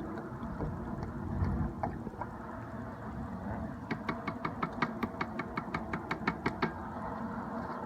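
Old motor oil being poured from a container into a quench can, glugging in a quick, regular run of knocks about five a second that starts about four seconds in and stops near the end, over a steady low rumble.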